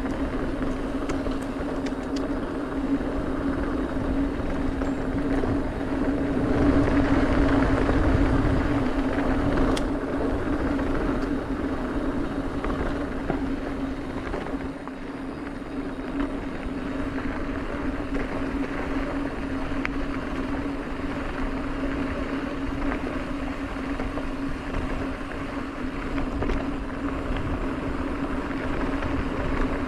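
Mountain bike rolling fast down a dirt fire road: tyres on packed dirt and wind rushing past, over a steady unchanging hum that swells a little about a quarter of the way in.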